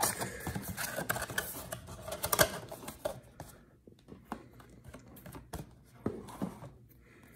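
Cardboard Donruss blaster box and trading-card packs being handled: a run of light clicks, taps and rustles, busiest in the first three seconds, then sparse and fainter.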